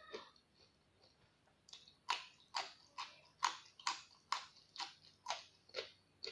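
Close-up crunchy chewing of raw vegetables, starting a little under two seconds in and going on at a steady rhythm of about two chews a second.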